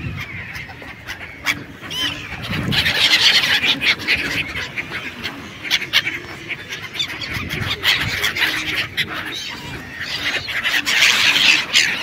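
A flock of black-headed gulls calling, with many overlapping calls as the birds scramble for food on the water. The calling swells about three seconds in and again near the end.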